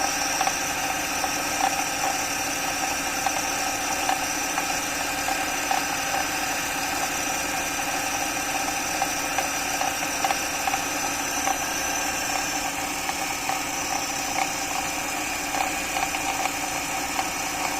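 BMW X3 E83 engine idling with a steady rumbling whine from the power steering pump and irregular crackles through it, the extraneous crunching noise the owner traces to the power steering system. The power steering fluid reservoir is open, which makes the noise louder.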